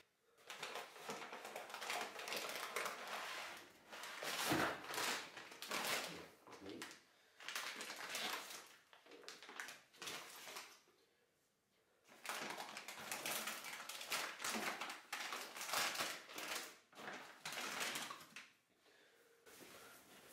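Plastic bags of white powder crinkling and rustling as they are handled in a plastic bucket, in irregular bursts with a pause of about a second and a half midway.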